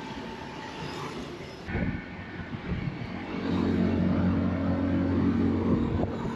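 Motor vehicle engine running in street traffic at a steady pitch, louder from about three and a half seconds in.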